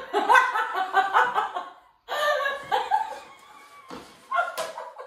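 A woman laughing in two long bouts, with a short sharp sound near the end.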